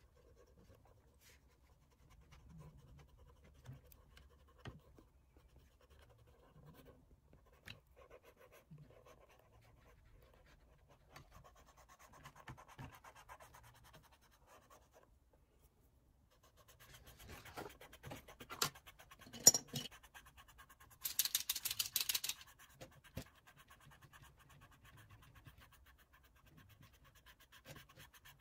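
Oil pastel stick scratching and rubbing over sketchbook paper in soft, intermittent strokes. About two-thirds of the way through come a couple of sharp taps, then a short burst of quicker, harsher scribbling.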